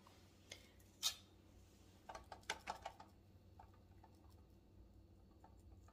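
Faint, scattered clicks and taps of a metal spoon working thick, seized-up maple cream candy into silicone molds in a metal sheet pan, with a cluster of taps about two to three seconds in.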